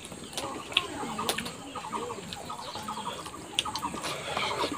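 Domestic chickens clucking in short, rapid runs, mixed with sharp clicks and smacks of someone chewing food eaten by hand.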